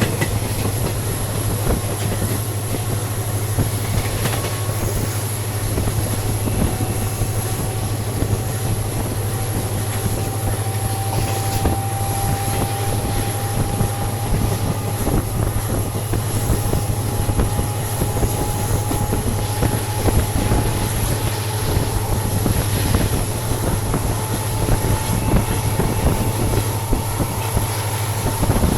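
Passenger train hauled by a WDP4D diesel locomotive running, heard from on board: a steady heavy rumble of wheels on rail, with a faint tone slowly rising in pitch.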